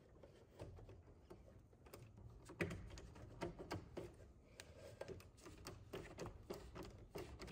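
Faint, irregular small clicks and scrapes of a screwdriver and wire at an AFCI breaker's terminal as the hot wire is landed and its screw tightened.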